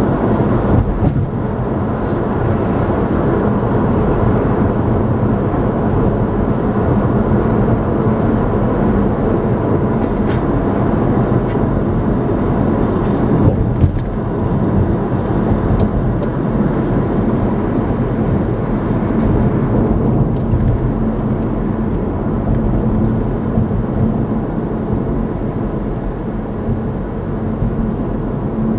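Steady road noise of a car driving at highway speed: tyre and wind noise with engine hum, mostly low-pitched and unbroken, with one brief bump near the middle.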